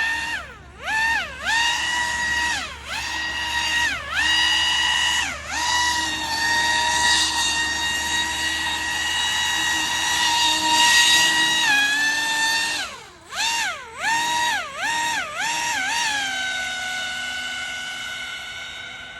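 Pro Boat AeroTrooper 25 RC airboat's electric motor and air propeller whining, the pitch dropping and climbing again as the throttle is eased off and reopened several times. About two-thirds through comes a run of quick throttle blips, and then it settles to a steady, lower whine.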